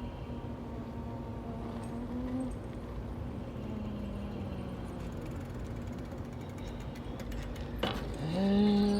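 A person's voice imitating an engine, a sustained droning hum whose pitch steps up and down. Near the end a click, then a louder drone rising in pitch like an engine revving.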